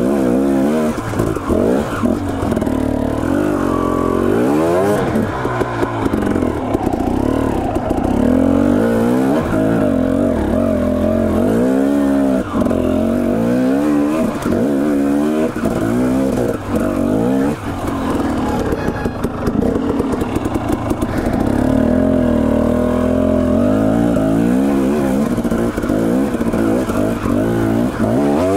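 Dirt bike engine revving up and down again and again as the throttle is opened and closed on the trail.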